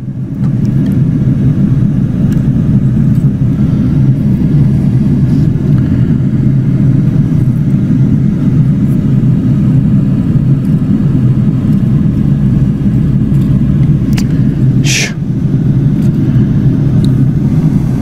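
A loud, steady low machine rumble with no change in pitch. A short hiss comes about fifteen seconds in.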